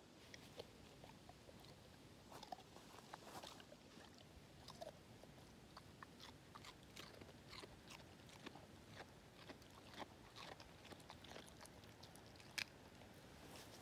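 English Setter crunching and chewing pieces of raw carrot, a run of faint, irregular crisp clicks with one sharper crack near the end.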